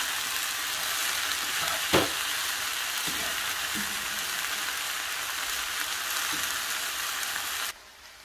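A vegetable filling sizzling as it fries in a stone-coated frying pan while it is stirred with a spatula, with a sharp knock about two seconds in. The sizzle cuts off suddenly near the end.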